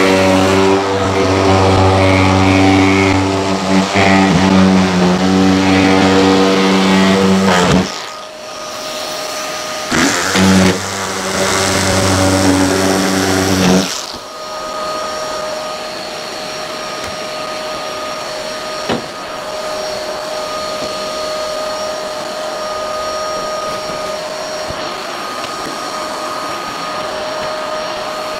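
Electric drywall cutter running with a steady motor hum as it cuts plasterboard, stopping about eight seconds in, starting again briefly, then cutting off about fourteen seconds in. The vacuum hooked up to the cutter runs steadily with a thin whine throughout, heard alone once the cutter stops.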